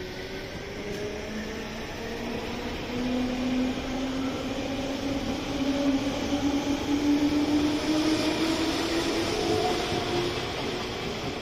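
JR West 201 series chopper-controlled electric train pulling away: its traction motor whine rises steadily in pitch as it gathers speed over the rumble of wheels on rail, growing louder as the cars pass and easing near the end.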